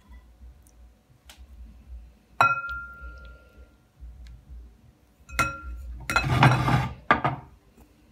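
Ribbed glass mixing bowl struck twice by the spatula, about two and a half and five and a half seconds in, each a sharp clink that rings on briefly. It is followed by about a second of scraping as melted butter is stirred round the bowl.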